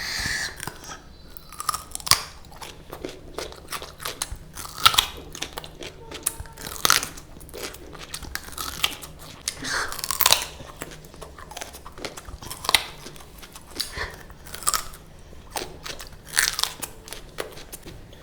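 Close-up crunching and chewing of raw sweet pumpkin, with sharp, loud crunches at irregular intervals of a second or two between quieter chewing.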